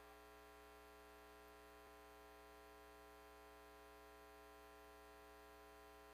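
Near silence: a faint steady hum that stays level throughout.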